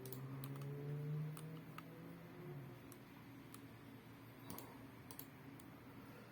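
About a dozen single computer clicks at irregular intervals, made while the colours of a Rubik's cube face are entered into a solving program's on-screen form. A low steady hum lasts through the first two and a half seconds.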